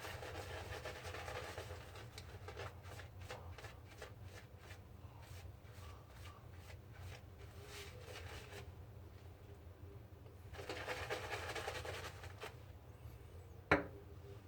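Faint scraping of a Gillette Travel Tech safety razor through gel lather and stubble: runs of short crackling strokes, then a softer rush, and a single sharp tap near the end.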